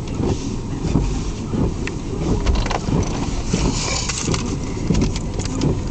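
Low steady rumble of a car running, with a hiss of wind and a few short clicks; the hiss swells briefly about four seconds in.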